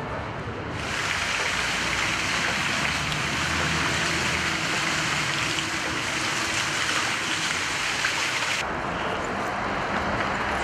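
A steady hiss of water that cuts in sharply about a second in and cuts off abruptly near the end.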